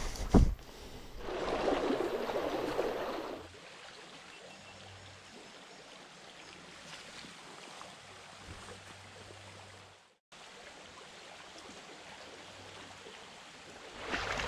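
Stream water running steadily over the stream bed. About half a second in there is a single sharp knock, the loudest sound here, and soon after a louder rush of noise lasting about two seconds before the sound settles back to the even flow, which cuts out for a moment about ten seconds in.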